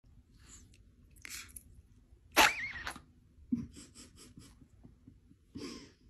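Long-haired Chihuahua making small nose and mouth sounds, soft snuffles and lip-smacking ticks, with one louder, sharp burst about two and a half seconds in.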